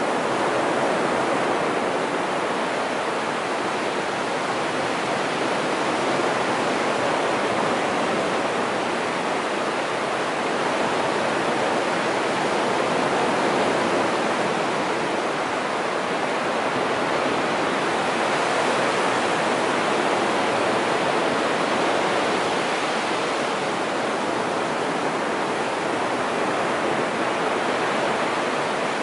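Sea surf breaking and washing up a flat sand beach: a steady rush of waves that swells and eases gently.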